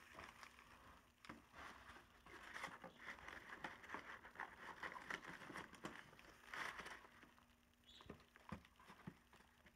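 Faint rustling and scraping of a cardboard box being opened by hand, its flaps pulled apart, with a few light knocks.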